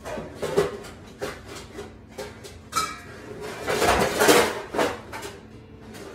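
Metal pots and pans clattering and knocking together as they are shifted about to pull out a roasting pan. A brief metallic ring comes about three seconds in, and the loudest clatter is around four seconds in.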